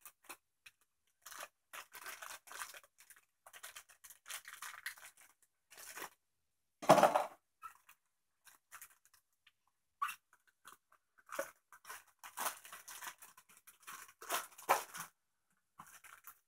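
Clear plastic packaging being torn open and crinkled by hand, in irregular short rustles and crackles, with one louder burst about seven seconds in.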